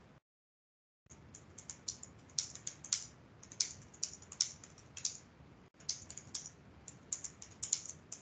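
Typing on a computer keyboard: irregular runs of quick keystrokes. The sound is silent for about the first second and drops out briefly again near the six-second mark.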